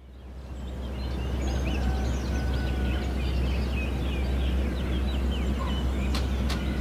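Outdoor evening birdsong fading in: many short chirps and quick calls from several small birds over a steady low rumble. Near the end come a few sharp ticks, about two or three a second.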